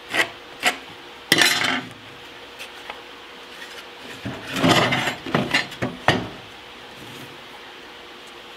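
Lumber and a metal speed square being handled on a metal table saw top: a few sharp knocks and clinks, with two short rattling scrapes about a second in and again around four and a half seconds in, and quiet gaps between.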